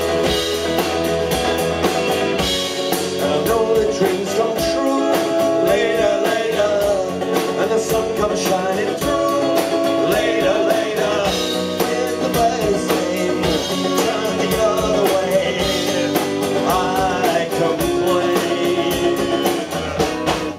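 Live punk rock band playing: strummed guitar over a steady drum-kit beat with cymbals, and a man's voice singing at times.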